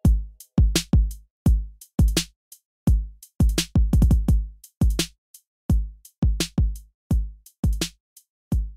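Background music: a bare electronic drum-machine beat of heavy kick drums and sharp bright hits, with no melody.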